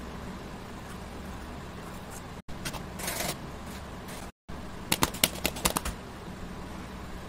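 An upturned aluminium baking tin is tapped and knocked against a steel plate to release the steamed dhokla inside, giving a quick run of sharp clicks about five seconds in. Under it runs a steady low hum, and the sound cuts out briefly twice.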